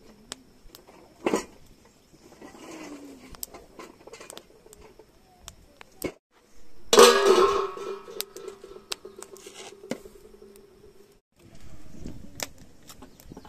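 Metal pots and utensils clinking and knocking. A loud clang about seven seconds in leaves a metal pot ringing for a few seconds.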